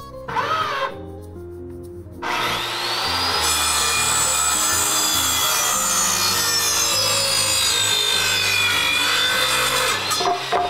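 Corded circular saw blipped briefly, then started about two seconds in and cutting lengthwise through a wooden board; its whine rises as the blade spins up, sinks slowly as it works through the wood, and winds down near the end.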